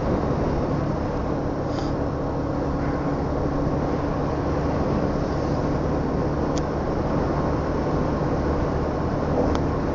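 A two-wheeler's engine running at a steady pace under a constant rush of wind noise, picked up by a helmet-mounted action camera's built-in mic.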